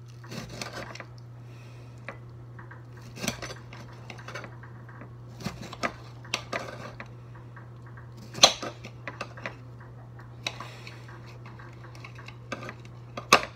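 Kitchen knife slicing a tomato on a plate, the blade clicking and knocking against the plate at irregular intervals, with one sharper knock about eight seconds in. A steady low hum runs underneath.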